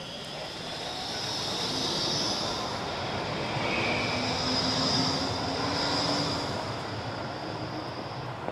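A tram passing close by. Its running noise swells to a peak about five seconds in and fades, with a high steady whine above it that stops just before the end.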